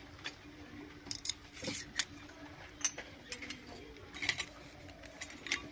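Miniature stainless-steel toy pots and bowls clinking as they are set down and nudged into place on a cloth: a string of light metallic clicks, the loudest about two, three and four seconds in.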